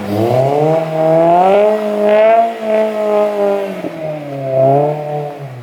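Car engine revving hard during a drift: the revs climb, hold high, dip about four seconds in, climb again and fall away near the end.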